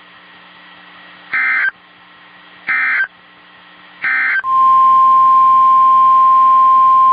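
Emergency Alert System header on NOAA Weather Radio: three short bursts of warbling SAME data tones, spaced a little over a second apart. About four and a half seconds in, a loud, steady 1050 Hz warning alarm tone begins, the signal that a warning-level alert is about to be read.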